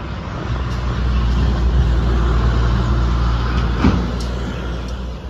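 Engine of a large road vehicle passing close by: a steady low drone that swells about half a second in and fades near the end, with one sharp knock a little under four seconds in.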